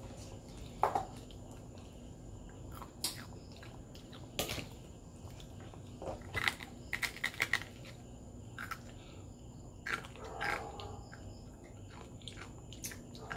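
A child biting and chewing crispy fried chicken, with scattered short crunches and clicks, thickest about halfway through.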